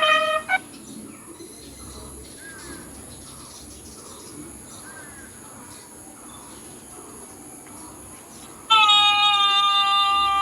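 Bugle call: a held note ends just after the start, then about eight seconds of pause with faint bird chirps, then another loud, steady held note comes in near the end.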